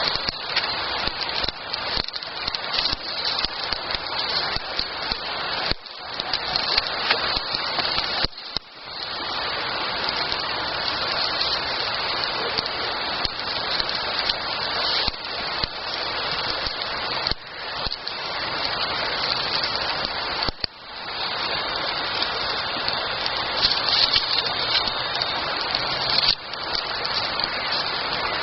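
Campfire burning with a dense, steady crackle and hiss of burning wood, dropping out briefly a few times.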